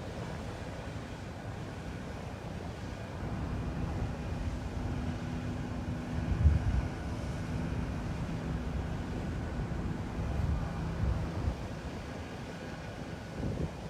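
A motorboat engine running steadily with a low hum, under wind buffeting the microphone and the wash of the sea, with a louder gust of wind rumble about halfway through.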